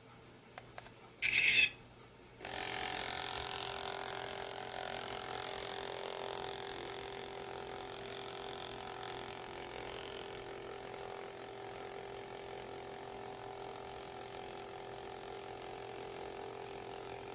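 Kids' instant camera's built-in thermal printer running steadily, a mechanical whir with a few held tones as it feeds paper and prints a photo. It is preceded about a second in by a short, sharp electronic sound.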